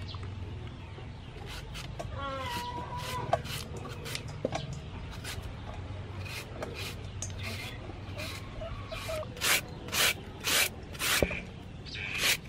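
Julienne peeler rasping strips off a peeled green mango in quick strokes. The strokes grow louder and more regular in the second half, about two a second. A short animal call comes about two seconds in.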